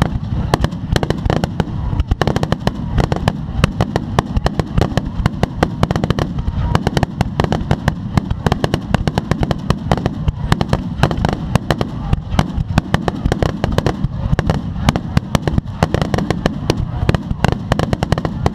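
Fireworks finale barrage: a dense, unbroken stream of sharp shell bursts and crackling reports, several a second, over a continuous low rumble of booms.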